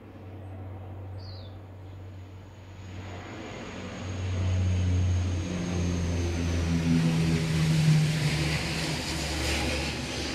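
Airplane flying past, its engine drone building from about three seconds in to its loudest near the end, the pitch dropping slightly as it goes by.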